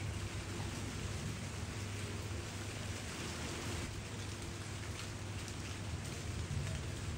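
Steady monsoon rain falling, an even hiss of rain on surfaces, with a constant low hum underneath.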